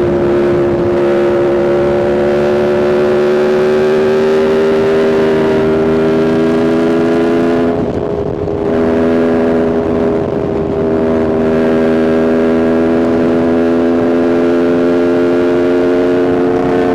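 2021 Aprilia RSV4's V4 engine through a Spark aftermarket exhaust, heard on the move under steady throttle. Its note climbs slowly, breaks off briefly about eight seconds in, then pulls and climbs again.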